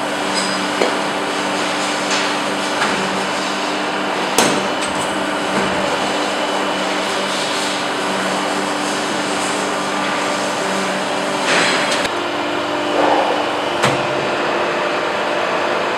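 SGO-1250 corner-forming machine running with a steady hum from its hydraulic drive. It is broken by a few sharp metallic knocks and short scrapes as the sheet-metal blank is pressed and handled: one about four seconds in, more near the end.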